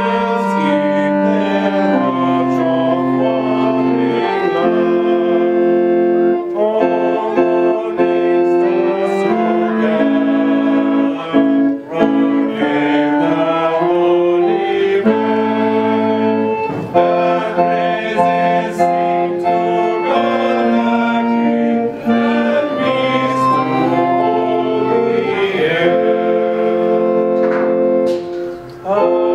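Electronic keyboard played with an organ voice, holding slow sustained chords that change every second or two.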